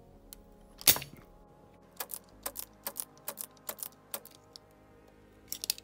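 Spring-loaded desoldering pump snapping as it fires to suck molten solder off a joint, one loud snap about a second in, then a run of lighter clicks and taps, with a quick cluster of clicks near the end. Quiet background music underneath.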